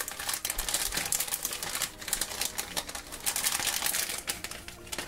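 Metallic foil blind-bag packet crinkling and crackling in the hands as it is torn open and pulled apart, a rapid, dense run of small crackles.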